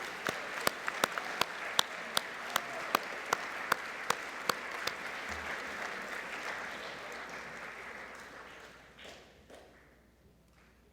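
Audience applauding, with one nearby pair of hands clapping louder in a steady beat of about two to three claps a second for the first few seconds; the applause dies away about nine or ten seconds in.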